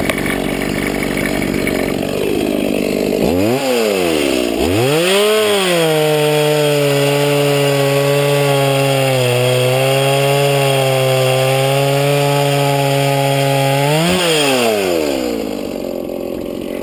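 Stihl MS170 two-stroke chainsaw idling, then blipped up twice and held at high revs for about eight seconds, its pitch sagging a little midway as it works through wood. Near the end the pitch rises briefly as the chain comes free, then drops back to idle.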